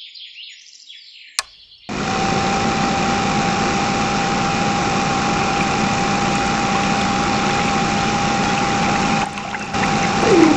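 A small electric motor switches on about two seconds in and runs steadily with a constant whine over a hiss.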